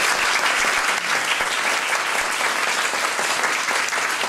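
Audience applauding steadily in a room at the close of a talk.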